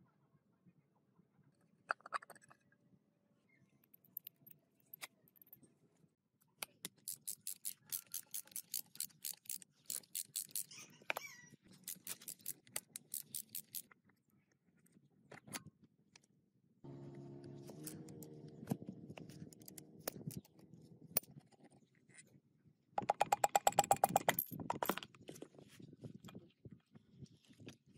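Hand tools working on the bare crankcase of a UAZ 469 engine block. There is metal-on-metal scraping and knocking, and several runs of quick, evenly spaced clicking. A short pitched creak comes a little after the middle.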